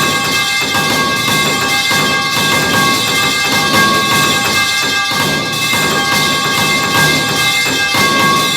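The metal pipe falling clang sound effect repeated rapidly and overlapping. Many clangs pile up into a continuous metallic racket with a steady ringing.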